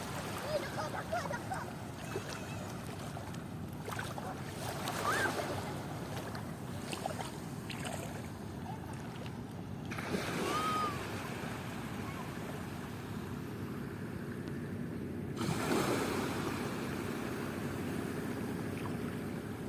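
Outdoor ambience: a steady rushing noise with a few faint, short bird calls, the clearest a single arched call about ten seconds in.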